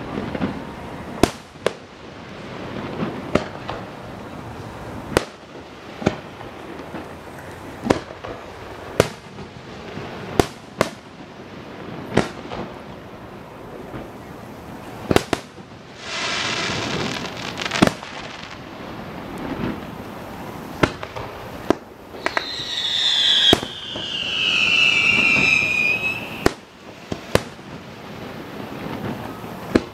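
Aerial fireworks display: sharp bangs of shell bursts every second or two. There is a hissing stretch about halfway through, and a long falling whistle about two-thirds in.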